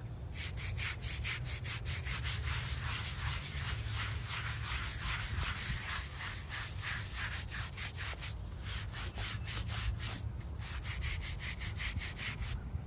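A hand brush scrubbing the face of a small headstone in fast back-and-forth strokes, about five a second, with two short pauses in the second half.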